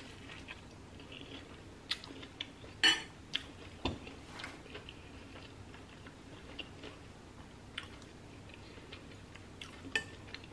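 Close-up chewing and biting of soup-soaked toasted sandwich bread, wet mouth sounds broken by a scattered few short, sharp clicks, the loudest about three seconds in.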